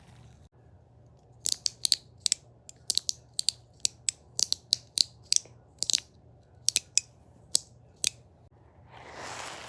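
About twenty sharp clicks in an uneven run, some in quick pairs, followed near the end by a rustling hiss.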